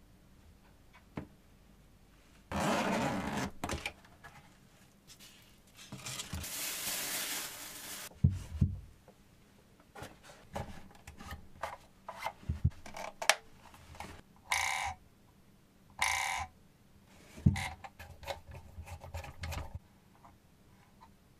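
Parts being handled: a scatter of knocks, clicks and scraping, with two longer rushing noises in the first half and two short buzzes about a second and a half apart in the second half.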